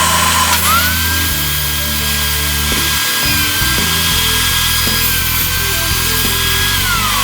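Power tool motor whining, rising in pitch about half a second in, holding steady, then dropping back near the end, over background electronic music.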